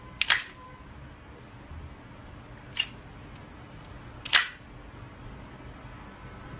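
A few short, sharp clicks over faint background noise: two close together near the start, one about three seconds in and a slightly longer one about a second and a half later.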